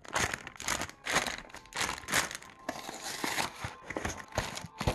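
Plastic snack packaging crinkling and rustling in irregular bursts, a few per second.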